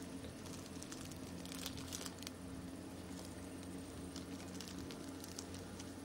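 Steady low hum under faint hiss, with scattered soft crackles and rustles and no distinct event: the background noise of an old camcorder recording.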